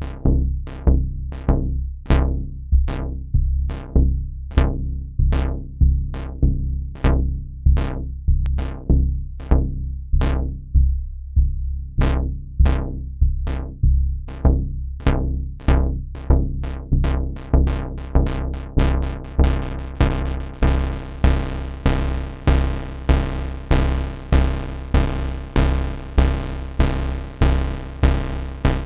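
Behringer System 100 analog modular synthesizer playing a single low bass note over and over, a little under twice a second, each note starting sharply and decaying, retriggered by an LFO. Past the middle the filter opens and the notes turn brighter and buzzier.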